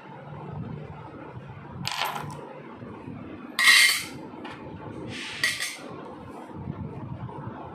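Three short metallic clinks of steel bolts knocking together, spread out, with the middle one the loudest.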